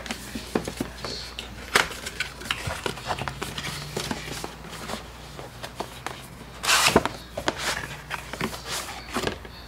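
Cardboard retail box handled and opened by hand: scattered taps, scrapes and rustles as the lid comes off and the inner box slides out, with a louder scraping rustle about seven seconds in.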